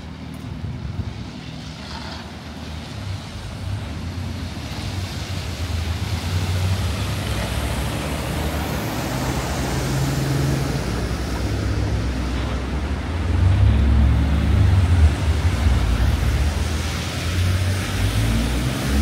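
Road traffic passing on a city street, a low engine-and-tyre rumble that builds through the middle and is loudest about two-thirds of the way through.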